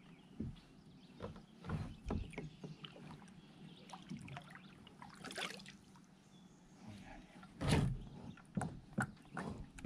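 Kayak paddle working in the water and knocking against the plastic hull of a NuCanoe Frontier fishing kayak: scattered dips, splashes and hollow knocks at irregular intervals, the loudest clatter about three quarters of the way through, followed by a few sharp knocks.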